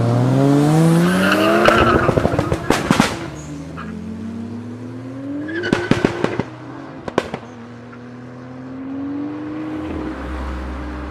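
Toyota Supra MK4's 2JZ straight-six revving up hard, then a rapid series of sharp pops and cracks as the throttle comes off, which happens again twice more. Between the bursts the engine note drops and then climbs slowly.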